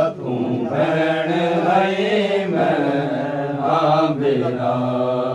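Men's voices chanting a Shia noha (a devotional lament for Ghazi Abbas) in long held, melismatic notes, without instruments.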